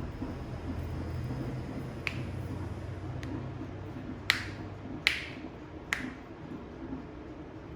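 Five sharp snaps from a barber's hands during a head massage, the loudest three coming about a second apart in the middle, over a low steady hum.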